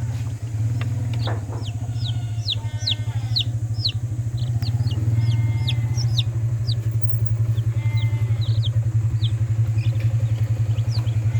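Many young kampung chicks peeping over and over in short, high, falling calls, over the loud, steady low hum of an engine running.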